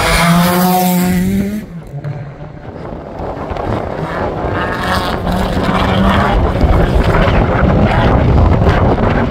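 Race-car engines at full throttle. A Ford Escort accelerates past close by, its pitch rising, and its sound cuts off abruptly about one and a half seconds in. A second car's engine then builds up and runs hard through the rest.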